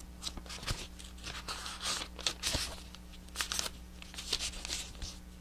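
Thin Bible pages being leafed through, rustling and crinkling in short irregular swishes, over a faint steady electrical hum.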